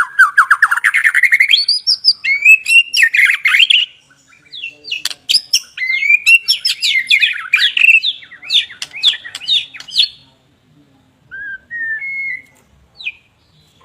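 White-rumped shama singing: fast, varied runs of rising and falling whistles and sharp chattering notes. There is a short pause about four seconds in, another dense run of song, then a few softer, scattered notes near the end.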